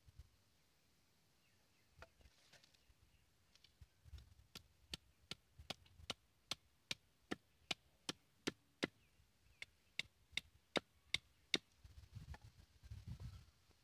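A machete chopping the end of a green bamboo stick to a point against a wooden stump: a run of about twenty quick, sharp chops, roughly three a second with a brief pause midway, after a few scattered taps.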